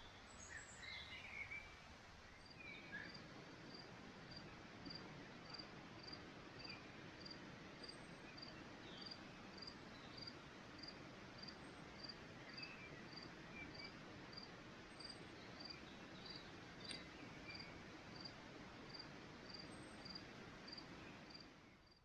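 An insect chirping steadily, about two short high chirps a second, starting a couple of seconds in, over a faint even hiss of outdoor background. A few short bird calls come before the chirping begins.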